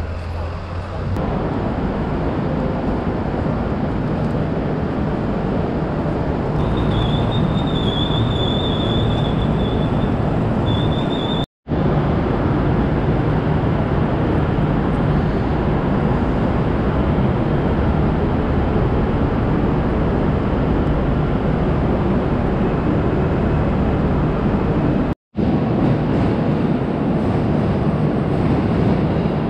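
Rail vehicle running on its tracks, a loud steady running noise. A thin high tone sounds for about four seconds, starting about seven seconds in, and the sound breaks off for an instant twice.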